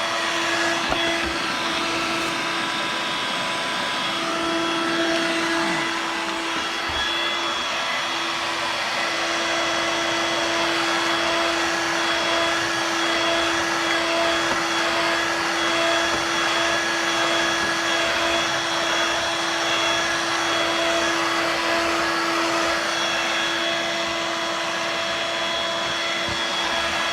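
Dirt Devil Vibe corded bagless stick vacuum running steadily: a constant motor whine over the rushing of air, with no change in speed.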